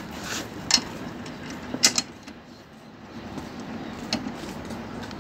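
A few sharp metal clinks from a socket wrench being handled and set onto the centre bolt of a new rotary lawnmower blade, the blade fitted because the old one was blunt.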